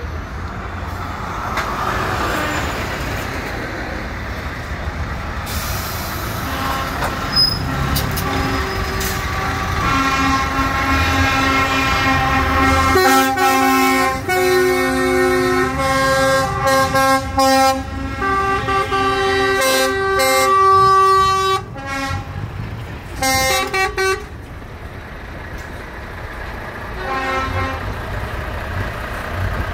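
Truck air horns sounding in repeated long blasts at several different pitches over the low rumble of truck engines.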